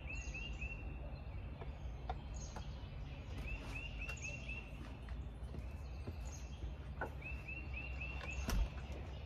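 A songbird repeats a phrase of four or five quick chirps, about every three and a half seconds, over a steady low outdoor rumble. Near the end a door shuts with a sharp thump.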